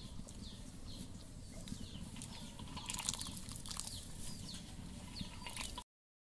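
Small birds chirping repeatedly in short downward-sliding notes over a steady low rumble, with a brief cluster of clicks and rustles about three seconds in; the sound cuts off abruptly near the end.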